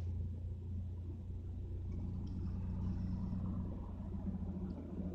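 Steady low rumble of a 1998 Mitsubishi Eclipse being driven, engine and road noise heard from inside the cabin, with a faint steady hum joining about two seconds in.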